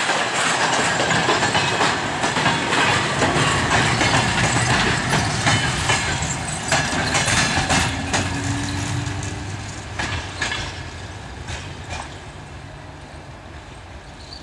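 Passenger coaches of a departing train rolling past, their wheels clattering over the track in a rumble of clacks. The sound fades steadily from about halfway as the last coach draws away.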